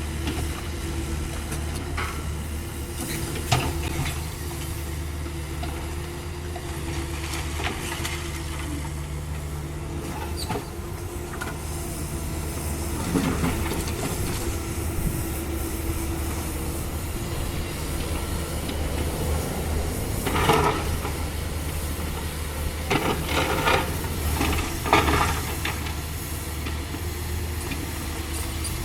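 Caterpillar 305.5E2 mini excavator's diesel engine running steadily, with occasional scraping and knocking of the bucket against rubble, the loudest about twenty seconds in and a cluster a few seconds later.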